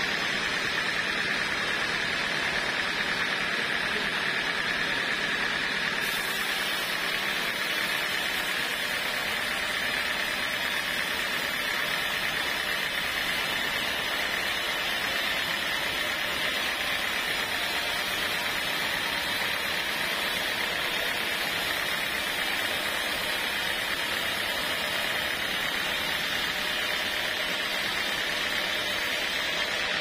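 Band sawmill running, its blade sawing lengthwise through a squared teak block in one steady, unbroken cut with a high-pitched edge.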